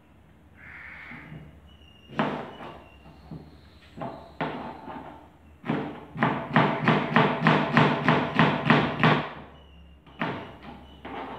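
Kitchen knife chopping on a cutting board: a few single strokes, then a fast even run of about four chops a second lasting some three seconds, then two more strokes near the end.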